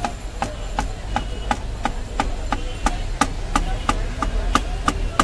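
Kitchen knife chopping a banana into slices on a plastic cutting board: quick, even taps of the blade hitting the board, about three a second.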